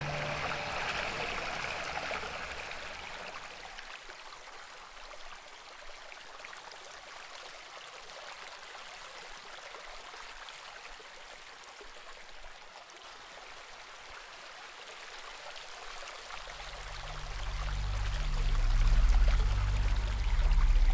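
Steady rushing water. About three-quarters of the way through, deep low bass notes of music come in and swell loudly over it.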